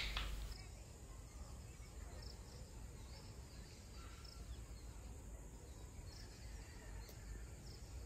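Faint rural outdoor ambience: a low steady background with insects and a few brief, faint bird chirps.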